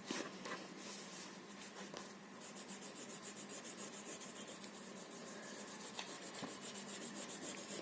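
Blue colour being rubbed onto paper while colouring in a drawing: a faint scratchy rubbing that settles into quick, even back-and-forth strokes, about five a second, from a few seconds in.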